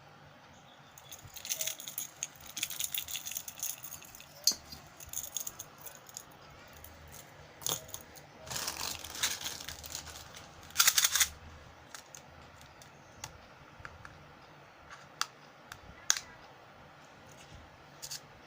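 Fishing lures and their packaging being handled, making bursts of rattling and clicking, the loudest about a second to four seconds in and again from about eight to eleven seconds, with single sharp clicks between.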